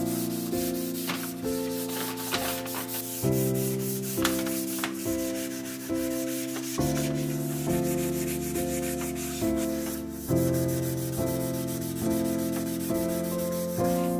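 Background music, with an abrasive pad rubbing and scrubbing back and forth along a metal shaft of a 1916 Chandler & Price 10x15 platen press, working old grease off it.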